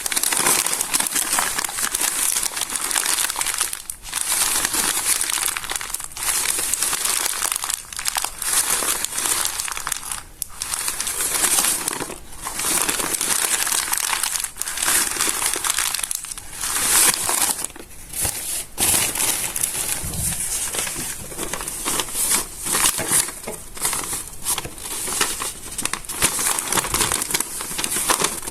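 Stiff, water-damaged notebook pages crinkling and crunching as they are handled and smoothed by hand. The crinkling is near-continuous, broken by brief pauses.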